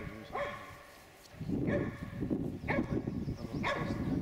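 Karelian bear dog barking at wild boar, baying in short barks about once a second, four or five times, with a low rumble underneath from about a second and a half in.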